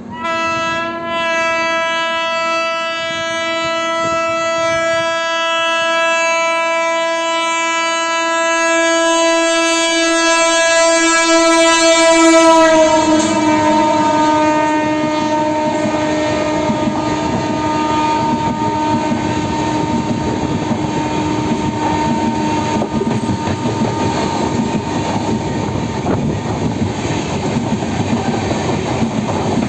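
WAP7 electric locomotive sounding one long continuous horn blast as it approaches. The horn drops slightly in pitch as the locomotive goes by, about 13 s in, then fades while the train's wheels clatter over the rail joints.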